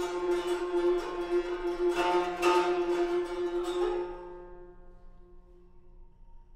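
Free improvisation on strings: rapid plucking on a guzheng (Chinese zither) over a held, steady note. The busy plucked texture fades out about four seconds in, leaving only a faint sustained tone.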